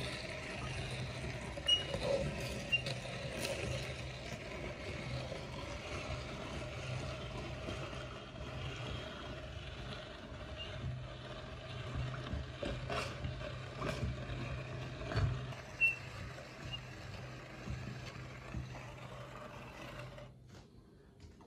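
Metal meat grinder working an ice cream cone through its auger and cutting plate: a steady mechanical grinding with a low hum and scattered sharp clicks and knocks. It stops abruptly about twenty seconds in, when the hopper runs empty.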